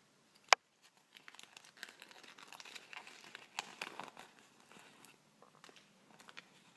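Thin folded paper leaflet being unfolded and smoothed out by hand, crinkling and crackling, with one sharp snap about half a second in; the crackling is densest in the middle and thins to a few crackles near the end.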